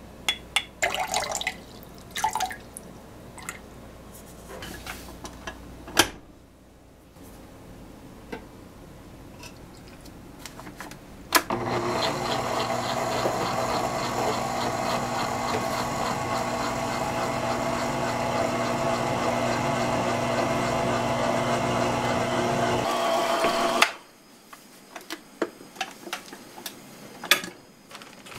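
Electric stand mixer running for about twelve seconds, kneading flour, rice bran and water into a soft dough, with water poured into the bowl as it turns. It starts after some clicks and knocks of the bowl being handled and stops abruptly, followed by a few more light knocks.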